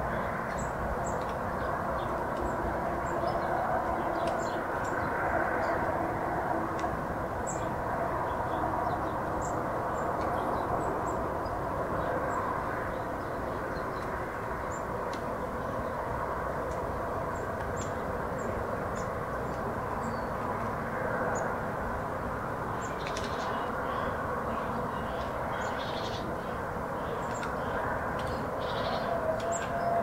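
Rural outdoor ambience: birds chirping on and off, with a few louder calls in a cluster near the end, over a steady distant rumble.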